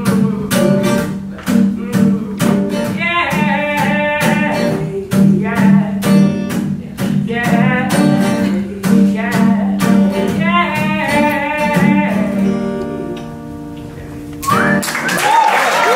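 Solo singer accompanying herself on acoustic guitar: strummed chords under sung phrases, ending on a final chord that rings out and fades. Applause breaks out about a second and a half before the end.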